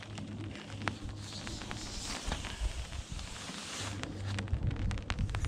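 Wind rumbling on the microphone, with rustling and many scattered sharp taps and clicks, as of a tarp being handled or first raindrops hitting it.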